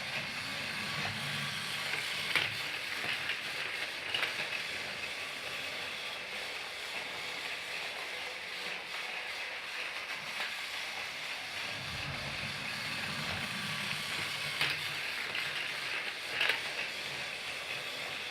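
Motorized Thomas the Tank Engine toy train running: a steady whirring of its small motor and gears, with a few sharp clicks and a low hum that comes and goes.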